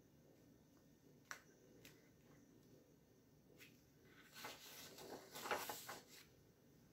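Sheets of drawing paper rustling and sliding for about two seconds as one drawing is lifted away and another laid in its place, after two faint taps; otherwise near silence.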